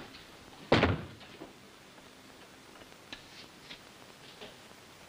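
A door slamming shut once, about a second in, with a short heavy thud. A few faint light clicks follow.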